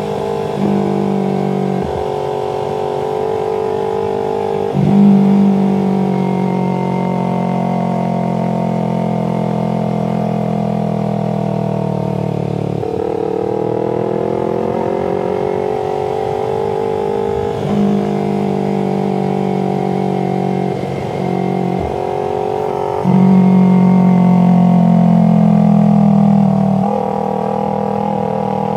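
Sport motorcycle's parallel-twin engine running while riding, its note rising and falling with throttle and gear changes, with a louder stretch near the end.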